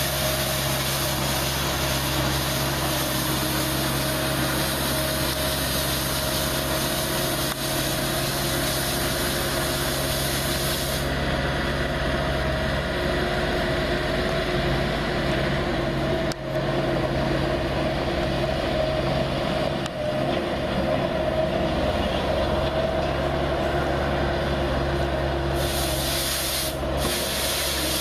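Skid steer engine running steadily while its hydraulic broom attachment sweeps, with a high hiss over the engine. The hiss drops away for much of the middle and comes back near the end.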